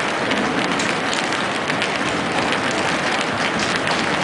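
Hail and rain pelting down: a dense, steady clatter of many small hits.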